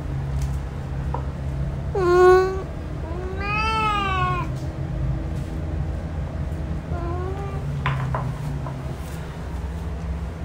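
Male domestic cat meowing: a short, loud meow about two seconds in, then a longer meow that rises and falls, and a faint short one about seven seconds in. A steady low hum runs underneath.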